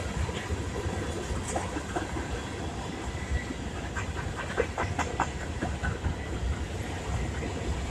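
Freight train of tank cars and coal cars rolling past, a steady rumble of steel wheels on rail with a run of sharp clicks and clanks about four to five seconds in.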